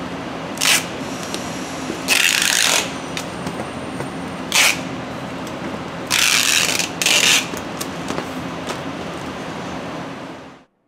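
Clear packing tape pulled off a handheld tape dispenser to seal a cardboard carton: five loud, noisy pulls, the longest lasting under a second, over a steady hum of factory machinery. All sound cuts off suddenly near the end.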